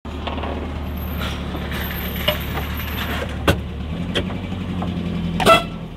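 Suzuki Carry pickup engine running as it drives along, heard from inside the cab, its note shifting about four seconds in. Sharp knocks and rattles come from the cab twice, the louder one near the end.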